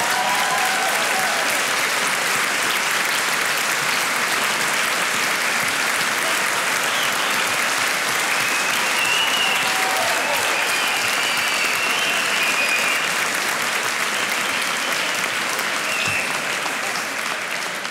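A large audience applauding, steady and continuous.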